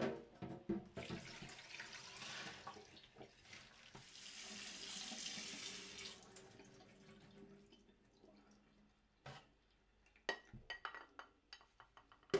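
Water running into a stainless steel kitchen sink as soaked rice is poured from a glass bowl into a plastic steamer basket and rinsed under the tap, the hiss loudest about halfway through. After it stops, drips and a few light knocks as the draining basket is handled.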